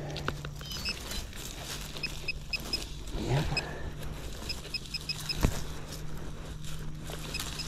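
Metal-detecting gear giving short, high electronic beeps in quick clusters several times, signalling a target in the dig hole, over the rustle and scrape of digging in leaf litter, with one sharp knock about five and a half seconds in.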